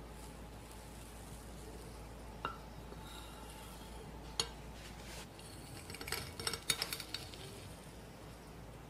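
A metal knife blade clicks twice on a ceramic plate as it cuts down through a soft cheesecake. Then a metal fork clinks and scrapes on the plate in a quick cluster as it slides under the cut slice.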